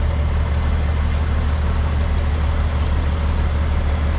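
Engine running steadily with an even low hum.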